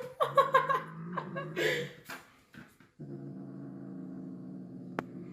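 A dog growling low and steadily, in two stretches with a short pause about two seconds in.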